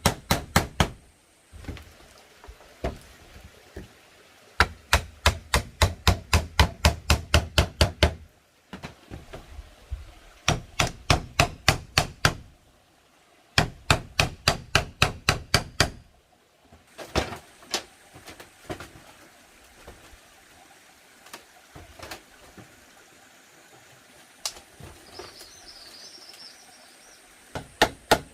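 Repeated sharp blows of a hand tool striking bamboo, in quick even runs of about four to five a second with short pauses between them. The runs give way to scattered single knocks in the second half.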